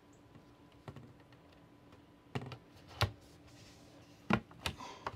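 Hands pressing a decorative arch onto a push-to-open RV cabinet door: about five separate light taps and clicks, spread a second or so apart.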